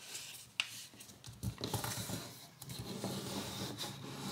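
A sheet of origami paper being folded in half and creased by hand: paper rustling and fingers sliding and pressing on it, with a sharp tick about half a second in.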